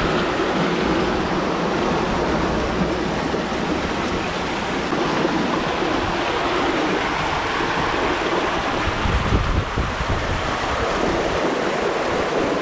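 Steady rush of hurricane floodwater and heavy rain, a continuous wash of water noise. Wind buffets the microphone in low rumbles about nine to ten seconds in.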